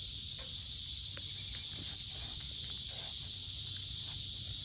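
A steady high hiss of outdoor background, with a few faint soft ticks and sniffs as a boxer dog noses at a sneaker.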